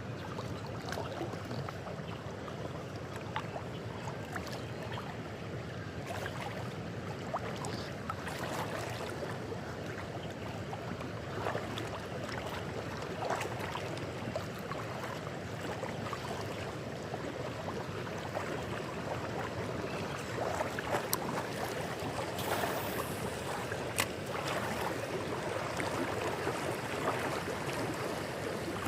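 River water running steadily, with scattered small clicks and splashes.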